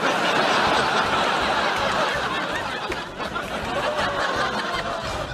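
People laughing and snickering.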